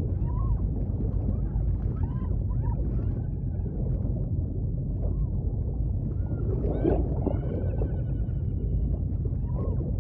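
Muffled underwater rumble of swimming-pool water heard from beneath the surface, with faint wavering high tones gliding in and out, most clearly in the second half.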